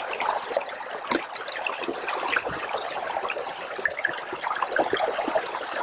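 Small fell stream babbling and trickling steadily, with a single light click about a second in.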